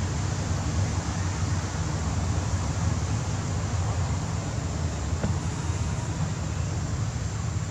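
Steady low rumble and hiss of outdoor background noise, with a faint click about five seconds in.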